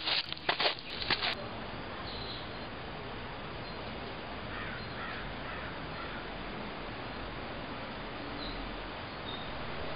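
A crow cawing, several harsh calls in the first second or so, then a steady faint outdoor hiss with a few faint high calls.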